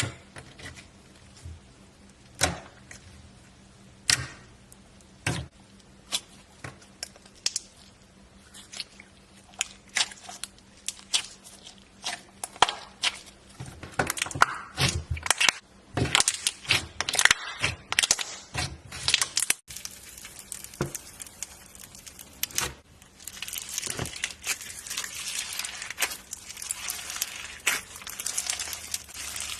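Slime being worked with shaving cream by hand, making sticky clicks and pops. They come singly at first, grow denser about halfway, and give way to a continuous crackling, squishing hiss for the last third.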